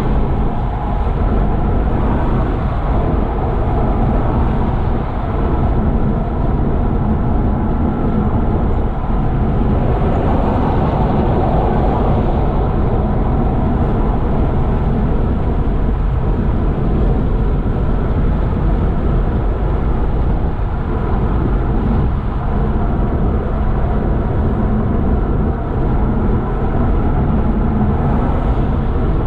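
Steady motor vehicle noise of road traffic: a continuous low rumble with faint steady engine tones.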